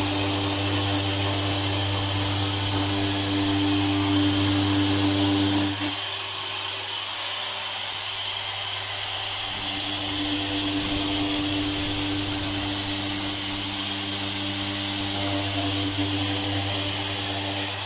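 Makita random orbital (eccentric) sander running steadily against a painted timber sash window frame, smoothing off paint residue. The motor note changes about six seconds in, then runs on evenly.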